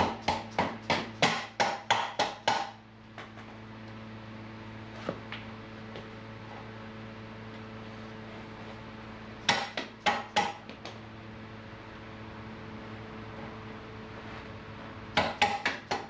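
Soft-blow hammer tapping the rear wheel assembly into place in a motorcycle swingarm: three runs of quick, sharp taps, gently rather than forced. A steady low hum runs underneath.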